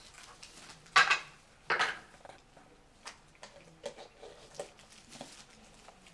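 A Pembroke Welsh Corgi pawing and tearing at a wrapped present: small scratches and rustles, with two louder rips of wrapping paper about a second and nearly two seconds in.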